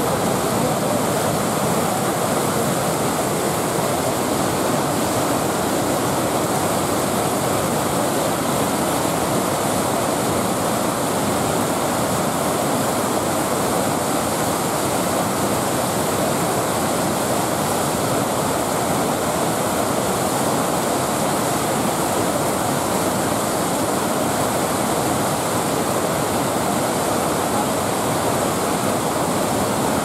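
Steady, unbroken rush of white water from the Manavgat Waterfall, a wide, low cascade with the river in powerful flow pouring over a broad rock ledge.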